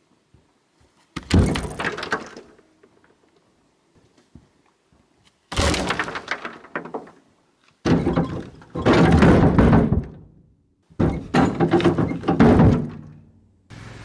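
Four separate bursts of rough knocking and cracking, each lasting one to two and a half seconds.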